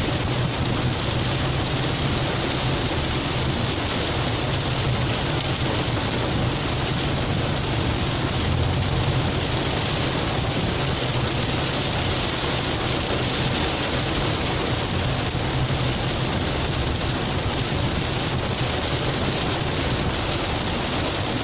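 Heavy rain falling on a car, heard from inside the cabin, over a steady low engine hum.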